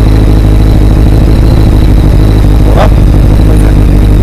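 Honda CBR900RR SC33 inline-four engine idling steadily through an aftermarket Sebring silencer and Akrapovič header pipes, loud and even.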